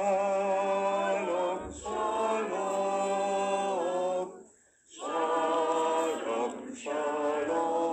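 A group of voices singing unaccompanied in slow, held phrases, with a brief pause about halfway through.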